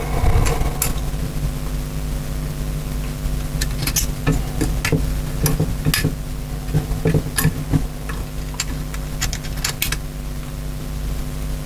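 Small metal carburettor parts and tools clicking and tapping as they are handled on a workbench, in irregular bursts that come thickest in the middle, over a steady background hum.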